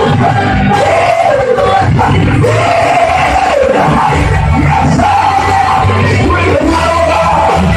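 Loud amplified worship music with a steady low bass, and a congregation's voices singing and calling out together over it.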